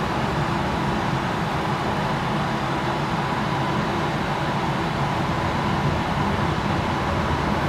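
Steady, even roar of a glassblowing studio's gas-fired furnace and burners.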